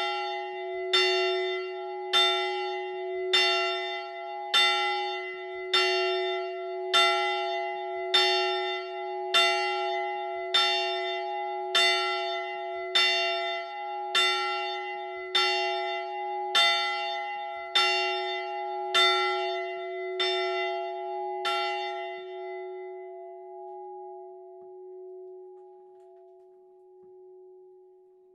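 A single church bell swinging and struck by its clapper about once a second, with the same tone at each stroke. The strokes stop about three-quarters of the way through and the bell's long ring fades away.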